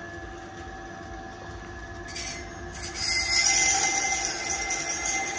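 Knife-sharpening machine running with a steady hum, then a knife blade ground dry on the 160-grit wheel: a short scrape about two seconds in, and from about three seconds a louder, steady grinding of steel on the wheel with a high whine.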